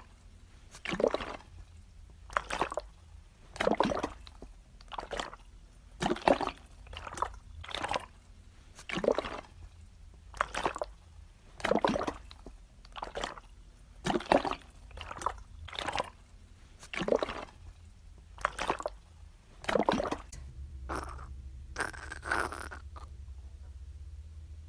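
Bowel sounds heard by abdominal auscultation: short gurgles about once a second at uneven spacing, becoming fewer and weaker near the end.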